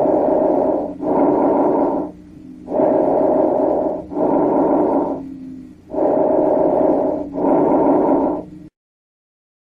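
Breath sounds heard through a stethoscope on the chest: three breaths, each an inhalation and an exhalation of about equal length with a brief gap between them. The sound cuts off abruptly about a second before the end.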